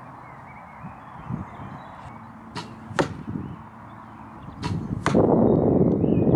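An arrow from a recurve bow striking the layered foam target boss with a sharp thwack about three seconds in, and a quick pair of clicks shortly after. Near the end a loud rushing noise lasts about two seconds and cuts off suddenly.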